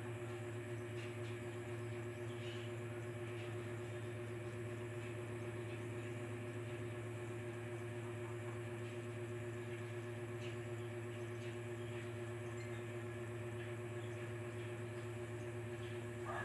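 A steady low hum with a constant pitch, with a few faint ticks over it.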